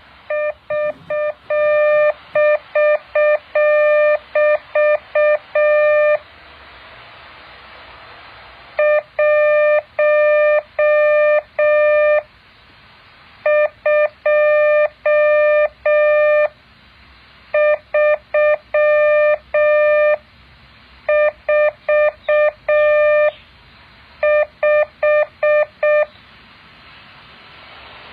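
Morse code practice: a single mid-pitched beep keyed in dots and dashes, sent in six groups with pauses of a second or two between them, over a steady hiss.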